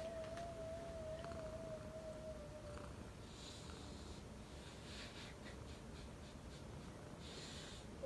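A house cat purring, a low steady rumble, with some soft high snuffling ticks in the second half. A faint wavering steady tone runs for the first three seconds.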